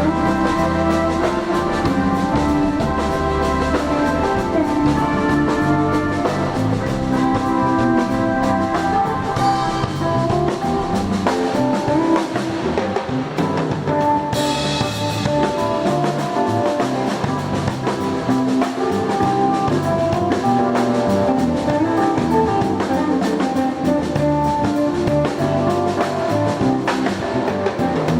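Instrumental band music with a steady beat: drum kit and guitar playing over keyboard-like held chords.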